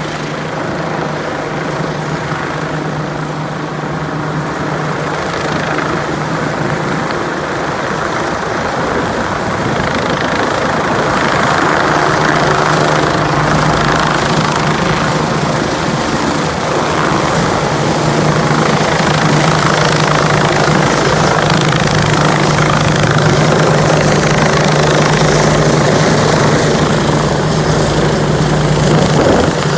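Air ambulance helicopter's rotor and turbine engine running with a steady low hum, the sound slowly growing louder.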